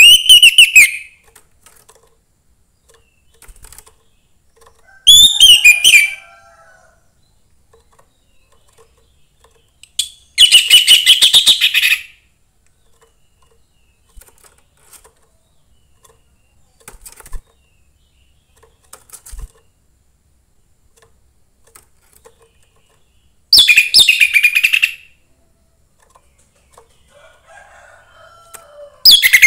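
Young wild orange-headed thrush singing in short, loud phrases of rapid, high notes, each one to two seconds long, separated by pauses of several seconds. A few faint, lower notes fall between the phrases.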